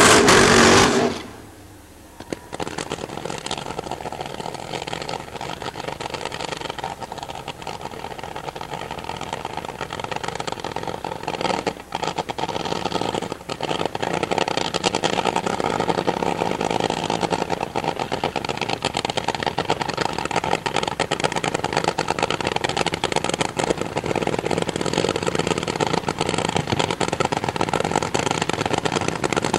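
Supercharged nitro-burning AA/Fuel funny car engine at full throttle on the launch, very loud, cutting off within the first couple of seconds. After that comes a quieter, steady rattling mechanical noise.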